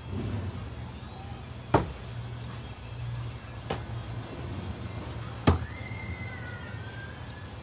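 Three Bill Page Bullseye Seeker throwing knives, thrown one spin, striking a wooden target one after another, about two seconds apart; the first and third hits are the loudest.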